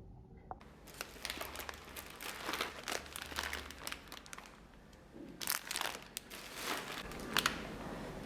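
Crinkling and rustling of a wrapper or packaging being handled, starting just under a second in, easing off briefly a little past the middle, then picking up again.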